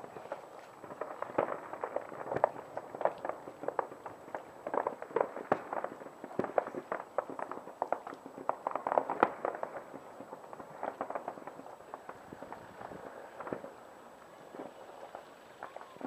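Fireworks display going off: a dense run of irregular pops and crackles that thins out in the last few seconds.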